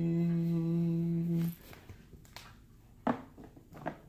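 A person's voice holding one long, steady hummed note, which stops about a second and a half in. Two short, fainter vocal sounds follow near the end.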